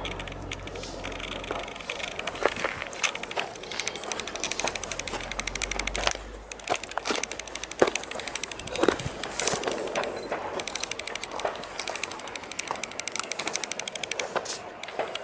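Footsteps crunching on a dry dirt-and-gravel hiking trail: irregular crunches and clicks over a constant fine crackle. A low rumble fades out about six seconds in.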